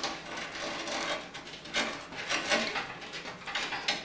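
Power-supply cables being pulled through a rubber cable-routing grommet in a PC case: a series of rubbing, scraping rustles.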